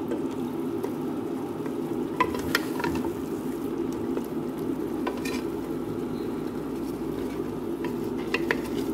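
Chicken pieces frying in a thick tomato-and-spice paste, sizzling steadily as a wooden spatula stirs them in an aluminium pressure-cooker pot. A few sharp knocks of the spatula against the pot stand out, two around two seconds in, one around five seconds and two near the end.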